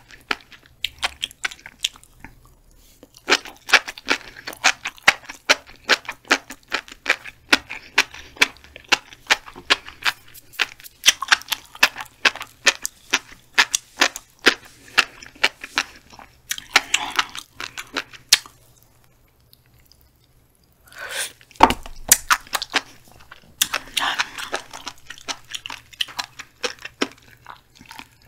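Close-up chewing of black flying fish roe (tobiko), the little eggs popping in many sharp clicks several a second. About two-thirds through the popping stops briefly, then there is a single heavier knock before the popping chewing resumes.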